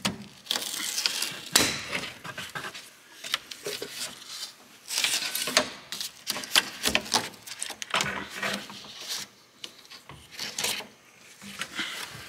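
Irregular knocks, clicks and scraping of a Saab 9-3 sunroof assembly's frame being handled and tilted down out of the roof by hand, in scattered bursts with short pauses.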